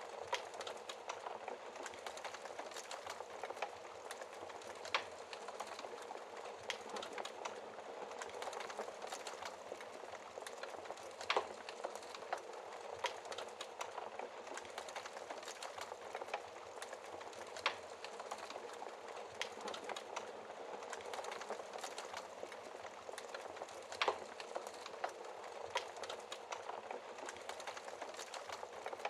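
Wood fire crackling in a fireplace: a steady soft hiss of burning with many small crackles and a few louder sharp pops, roughly every six seconds.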